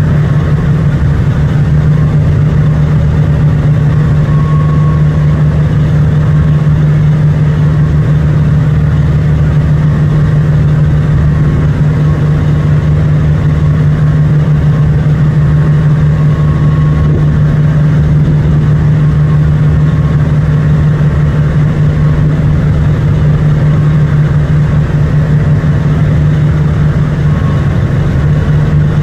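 Boat engine running with a steady, unchanging drone and a strong low hum.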